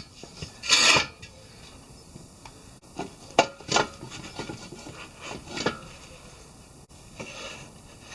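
A handful of short scraping and rubbing strokes with a few light clicks, spread over several seconds, as of objects being handled and shifted about.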